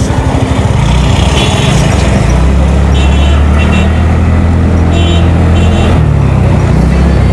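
Motor scooter engine pulling away and running at road speed, with wind on the microphone. The engine note strengthens about a second in and eases near the end.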